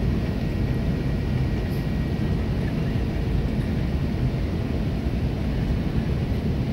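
Steady low rumble of an Airbus A330's engines and airflow heard inside the aircraft on final approach, with a faint steady high whine.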